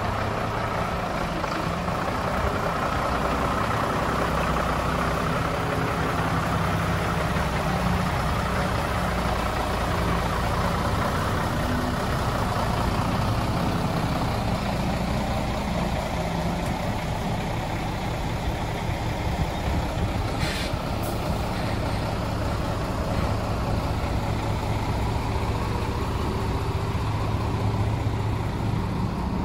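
Scania P93HL truck's 9-litre six-cylinder diesel engine idling steadily with a low, even drone.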